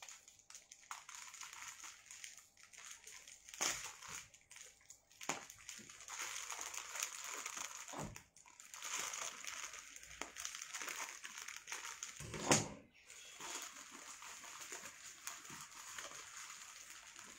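Rustling and handling noise, with several louder crinkles and knocks, the loudest about twelve and a half seconds in.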